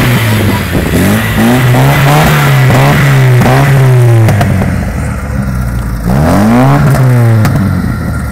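Lada 2102's inline four-cylinder petrol engine being revved in repeated short blips, its pitch rising and falling each time. It holds a steady lower note for a couple of seconds past the middle, then is blipped again.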